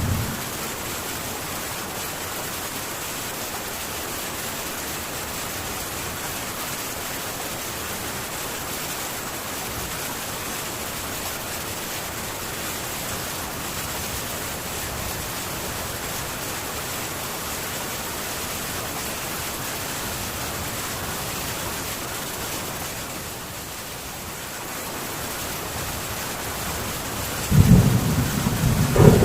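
Heavy rain on a metal tin roof, a steady hiss that eases slightly a few seconds before the end. A low rumble of thunder swells in near the end.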